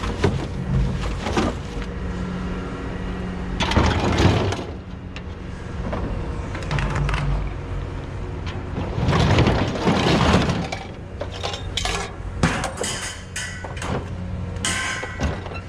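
Pieces of scrap metal clattering and crashing onto a pile as they are thrown off: one bout about four seconds in, a bigger one around nine to ten seconds, then a quick run of sharp metal knocks. A steady low hum runs underneath.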